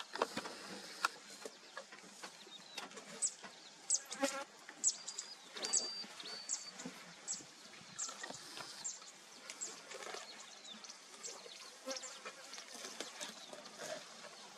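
Chirping wildlife ambience: many short high chirps that drop in pitch and a few brief steady whistles, over scattered clicks and rustles.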